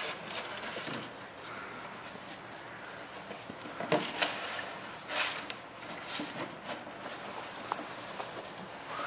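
A puppy pushes and mouths an empty plastic jug on a hard wooden floor. The plastic gives scattered clicks and knocks, loudest about four and five seconds in.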